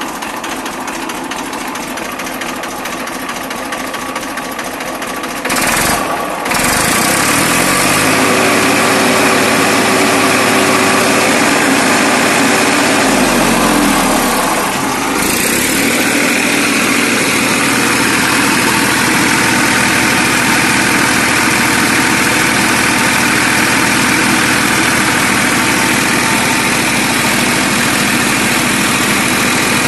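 The diesel engine of a Tafe 45 DI tractor running. About six seconds in it gets louder and its speed rises and holds. Around the middle it eases back down and settles into steady idling.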